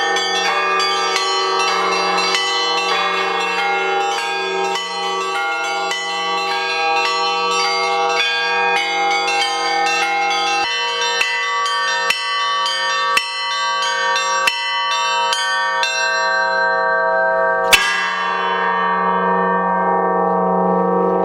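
Russian Orthodox church bells pealing, rung by a professional bell-ringer (zvonar): quick runs of strikes on the small bells over the steady hum of a large bell. The small bells fall away about three-quarters of the way through, then one loud stroke rings out.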